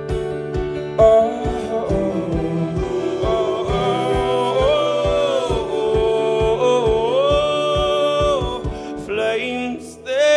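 Live band playing a song: voices holding long sung notes over keyboard and guitar, with a steady drum beat that drops out about a second before the end, where a single sung note rises.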